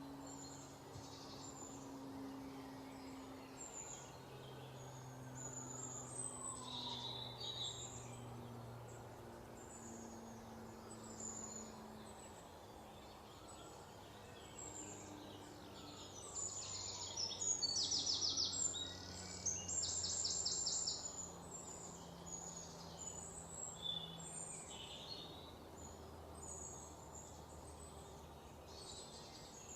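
Songbirds chirping, with bursts of fast, loud trills about halfway through, over a soft low drone.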